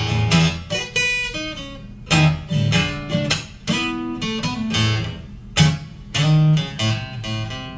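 Acoustic guitar strummed solo, chords struck in a choppy rhythm with short gaps and single ringing notes between the strokes.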